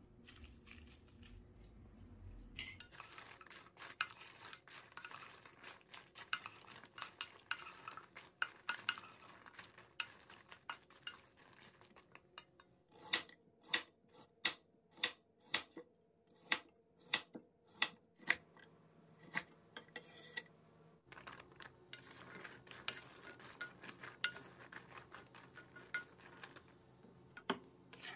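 A spoon stirring and tossing shishito peppers in a pan, with dense clicking and scraping. About 13 seconds in this gives way to a chef's knife slicing a carrot on a wooden cutting board, sharp chops about two a second. Busier clatter and scraping return for the last several seconds.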